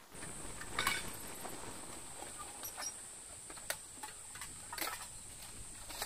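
A cicada's steady high buzz, with scattered crunching rustles on dry ground.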